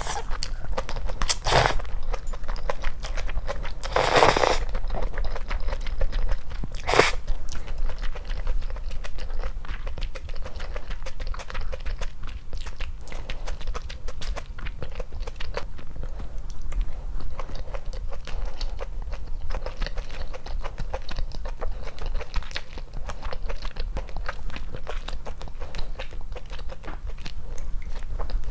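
Close-miked eating sounds: a steady run of small chewing clicks, with three louder bites near the start, the longest about four seconds in.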